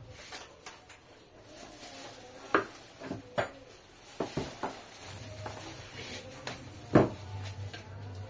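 Irregular knocks and clatter of small objects being handled on a workbench, about half a dozen sharp knocks with the loudest near the end. A low steady hum comes in about halfway through.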